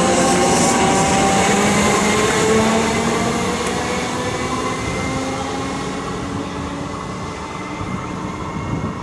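Comeng electric multiple unit running past on the rails, its wheels rumbling under a motor whine of several steady pitches. It fades steadily as the train draws away.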